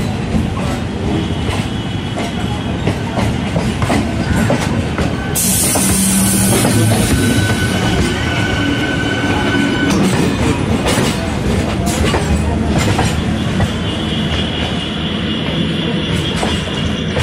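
Trains running side by side on parallel tracks, heard from an open coach doorway: steady wheel-and-rail rumble with irregular clacks over rail joints and points. A thin steady wheel whine runs for a few seconds in the middle, and there is a short burst of hiss about five seconds in.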